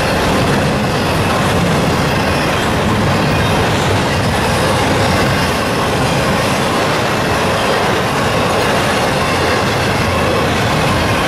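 Double-stack intermodal freight train's well cars rolling past, a loud, steady rumble and clatter of steel wheels on the rails.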